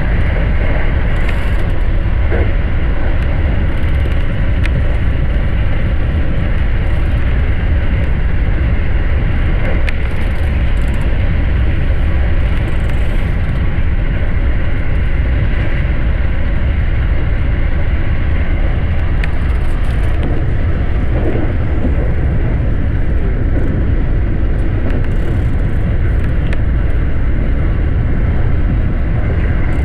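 Steady running noise of a JR West Special Rapid electric train travelling at speed: a continuous deep rumble heard from inside the front car.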